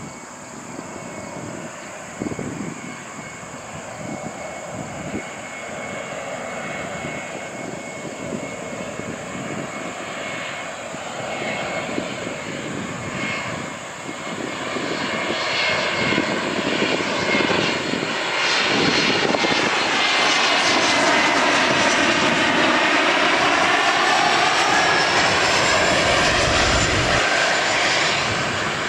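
Mitsubishi (Bombardier) CRJ-700 regional jet on landing approach, its two rear-mounted turbofans whining. The sound grows steadily louder as it comes in low, is loudest over the last third, and the whine drops in pitch near the end as the jet passes.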